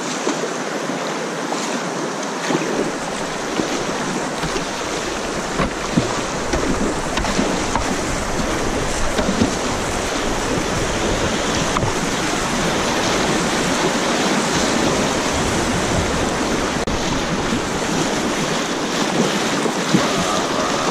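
Rushing whitewater of a river rapid, heard from a kayak running through it, growing louder as the boat moves into the rough water. Scattered small splashes and knocks of the paddle, and a low wind rumble on the microphone a few seconds in.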